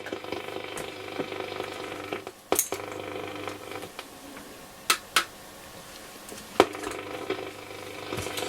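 Roberts R707 transistor radio's loudspeaker giving a steady hiss with faint whines on medium wave, no station coming through, a fault the restorer puts down to the module. A few sharp clicks break in, two of them close together about five seconds in.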